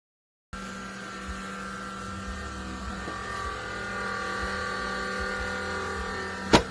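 Small fans of a filament dryer running with a steady whirring hum, and a sharp click near the end.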